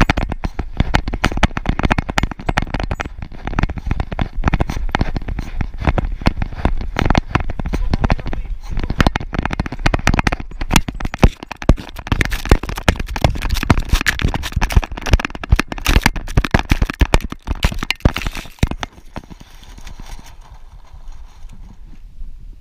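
Camera on a running greyhound's collar clattering and thumping in a dense irregular stream of knocks, with her strides jolting it and wind rushing over the microphone. About nineteen seconds in it drops to a much quieter steady hiss.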